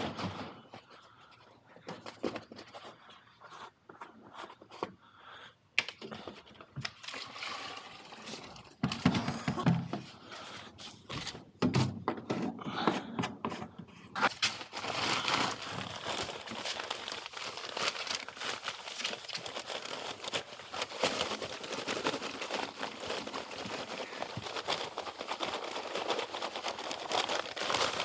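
Plastic jerry can and buckets being handled, with scattered knocks and scrapes. About halfway through, a steady pouring hiss begins as material is poured into a mixing bucket.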